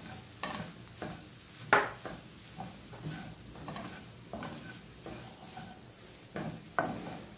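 Wooden spatula stirring and scraping minced meat around a nonstick frying pan in irregular strokes, a few sharper than the rest, over a faint sizzle of the meat frying.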